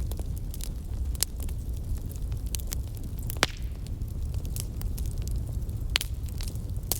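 Wood fire crackling: a steady low rumble of flames under many sharp crackles, with louder pops about three and a half seconds in and again near six seconds.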